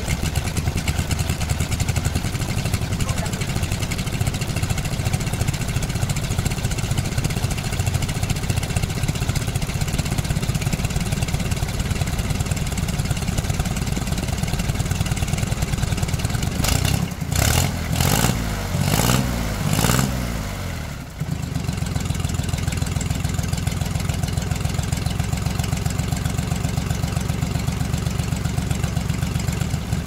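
An engine idling steadily, with a few short revs about seventeen to twenty seconds in before settling back to idle.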